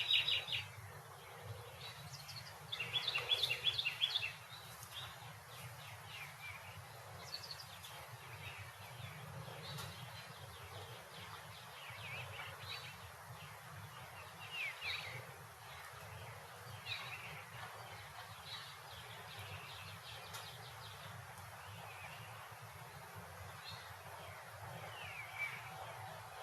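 Suburban street ambience: small birds chirping on and off over a steady low background rumble, with a loud quick flurry of chirps about three seconds in.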